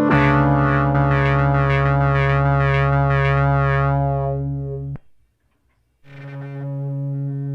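Arturia MicroFreak synthesizer playing a held note with a sweeping modulation that pulses about twice a second. The note cuts off about five seconds in, and after a second of silence the next factory preset starts a new held note.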